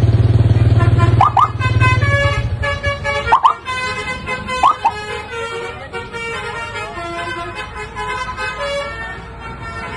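A tour bus's engine rumbles close by for about the first second, then its Basuri telolet horn plays a tune of short held notes at changing pitches, with a few quick rising chirps in among them.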